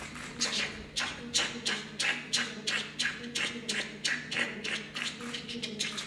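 Live electronic music: a rhythmic loop of sharp, hissy percussive hits, about three a second, over a low steady drone.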